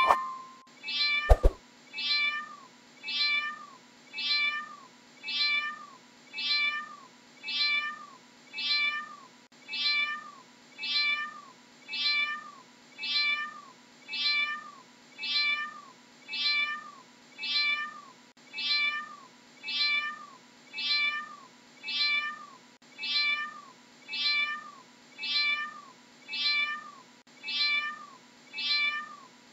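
A cat meowing: the same short, high meow with a slight downward fall, repeated about once a second. A short ding at the very start and a single click about a second and a half in.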